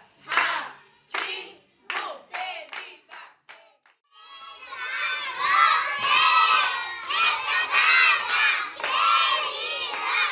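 A group of young children shouting and cheering together. First come short separate bursts that follow closer and closer together, then from about four seconds in a continuous loud group shout.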